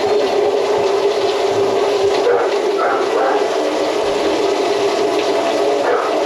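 A motor-driven machine running steadily with a constant hum, at an even level.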